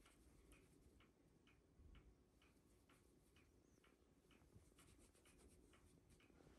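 Near silence with a clock ticking faintly, about two ticks a second.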